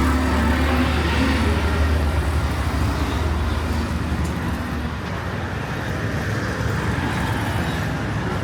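Street traffic noise with a motor vehicle's engine running close by, a low rumble that fades about five seconds in.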